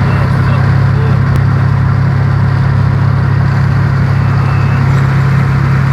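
Engine idling: a steady, unchanging low drone with a hiss above it.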